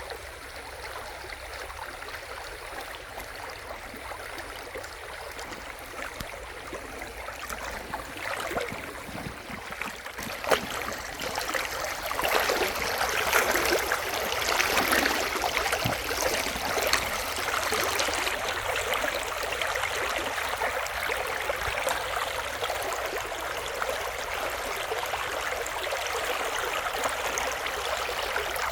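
Shallow river running over stones: steady splashing and babbling, growing louder and brighter about twelve seconds in. A single sharp click about ten seconds in.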